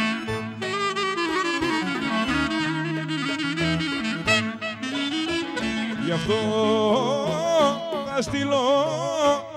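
Greek folk clarinet playing a heavily ornamented melody, its notes wavering and bending, over a band accompaniment with a moving bass line. The clarinet's bends grow widest and loudest in the last few seconds.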